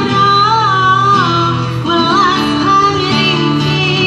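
A woman singing a pop song into a microphone, amplified through a small loudspeaker, accompanied by a man strumming an acoustic guitar. The voice holds and bends long notes with vibrato.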